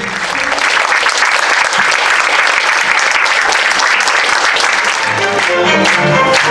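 Audience applauding. About five seconds in, instrumental music starts up under the clapping.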